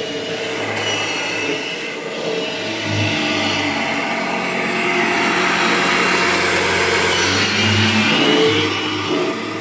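1998 Kirby Generation 5 upright vacuum cleaner running, a steady motor-and-fan drone whose tone shifts a little midway.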